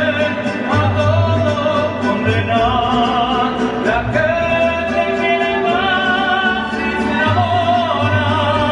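Mariachi ensemble playing, a wavering melody carried over a pulsing low guitarrón bass line.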